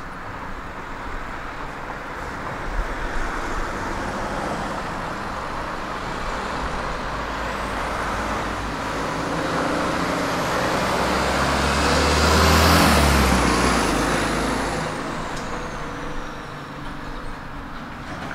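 A motor vehicle passing close by: a low engine rumble and road noise swell to their loudest about twelve seconds in and then fade, with a high whine that falls in pitch as it goes past.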